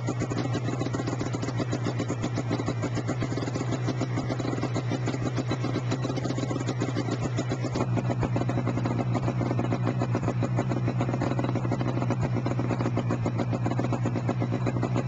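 1997 Yamaha Vmax XTC 600 snowmobile's two-stroke triple, fitted with a Bender aftermarket exhaust can, running steadily at an unchanging, idle-like speed with no pass-by rise and fall.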